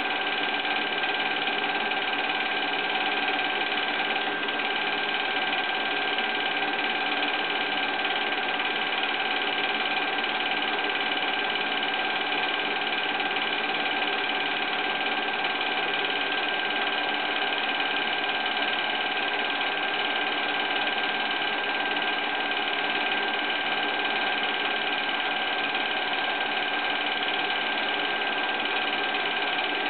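Film projector running, a steady mechanical whir with a constant hum.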